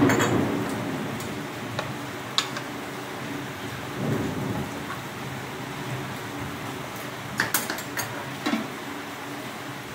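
Heavy rain pouring down steadily, with a few sharp clinks of a ladle against a steel cooking pot.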